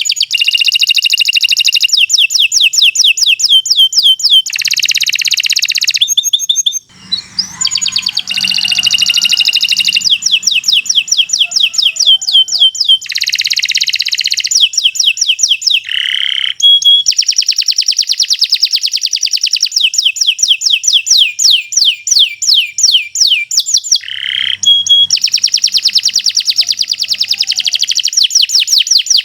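Domestic canary singing a long, loud song of rapid, high trills, one repeated-note phrase running straight into the next. There is a brief pause about seven seconds in and another near the end.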